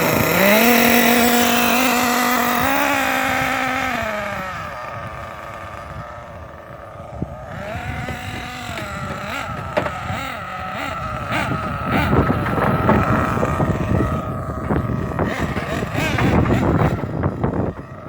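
Losi 8IGHT-T radio-controlled truck's motor revving up, holding a steady pitch for about four seconds and then falling away as it drives off, with a shorter rise and fall about eight seconds in. Later, wind buffets the microphone with a gusty rumble.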